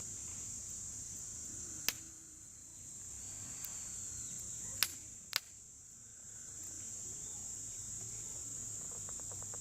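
Insects trilling in a steady, high-pitched drone that eases off twice, with three sharp clicks about two, five and five and a half seconds in.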